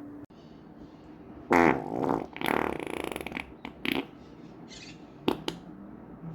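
A run of human farts: a loud, buzzing one about a second and a half in, then several shorter ones.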